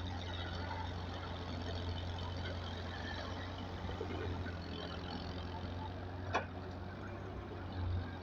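Heavy diesel engine running steadily with a low hum. A single sharp knock comes about six seconds in.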